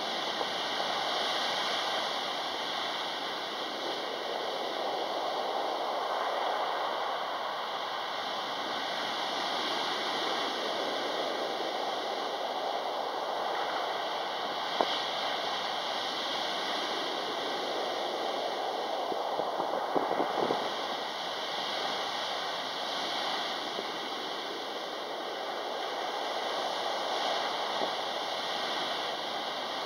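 Heavy surf breaking on a pebble beach: a steady rush of water that swells and eases as each wave comes in. A few sharp clicks come near the middle.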